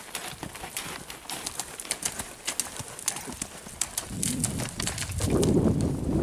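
Horse cantering on sandy forest ground: a run of quick hoofbeats, growing louder and deeper from about four seconds in as the horse comes close.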